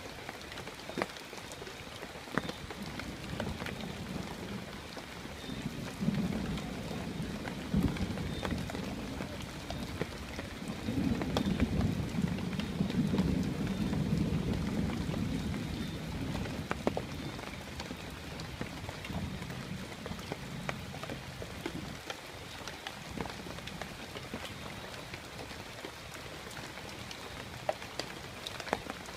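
Steady rain, with many individual drops striking close by. A long low rumble of thunder builds a few seconds in, is loudest around the middle and dies away.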